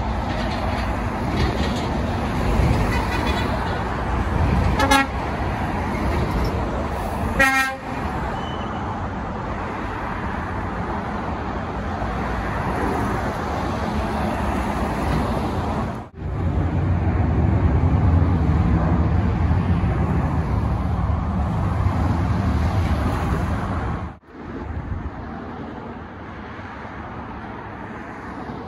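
Lorries passing on a busy road, with horns tooting twice: a short toot about five seconds in and a longer pulsing one near eight seconds. Later a heavy truck's engine passes close by with a deep rumble.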